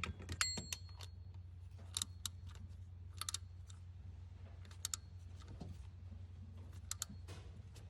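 Irregular metallic clicks and clinks of a ratchet and socket tightening the bolt of a new idler pulley, with a short metallic ring near the start, over a steady low hum.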